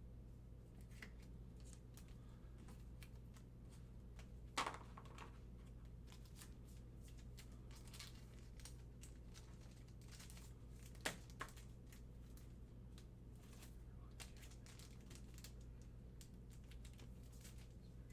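Trading cards being handled and sorted on a table: faint scattered clicks and rustles, with two sharper taps about four and a half and eleven seconds in, over a steady low hum.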